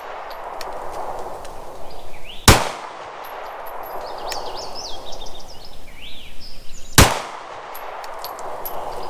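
Two single pistol shots from a Glock 19 9 mm handgun, about four and a half seconds apart, each followed by a long fading echo.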